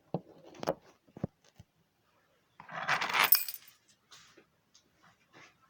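A few sharp knocks on a door in the first second or so, then a jangling metallic rattle lasting about a second, the loudest sound, with faint ticks after.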